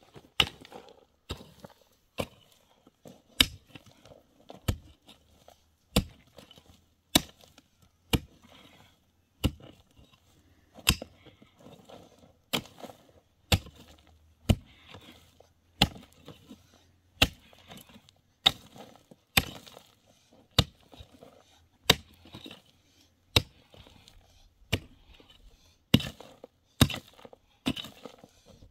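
A hand tool strikes hard again and again at a steady pace of about one blow a second, each a sharp, crisp knock.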